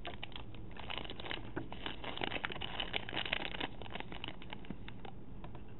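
Foil blind-bag packet crinkling and crackling as fingers dig inside it to pull out the toy. The crackling is thickest in the first few seconds and thins out toward the end.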